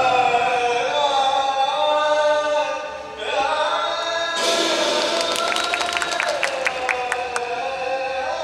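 Music with sustained, choir-like voices holding long notes; about four seconds in, a bright shimmer of quick chiming notes joins in for a few seconds.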